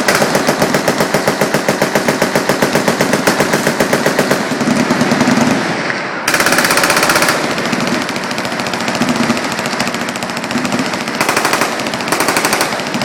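Machine guns firing full-auto on a firing range: a long, steady string of evenly spaced shots for the first four seconds or so, then several guns overlapping, with a very rapid burst about six seconds in and more bursts near the end.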